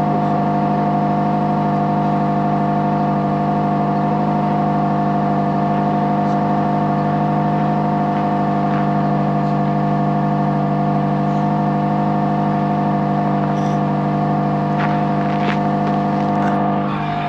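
A Honda Civic Type R FN2's four-cylinder engine idling steadily at an unchanging speed, warming up after a cold start in deep frost.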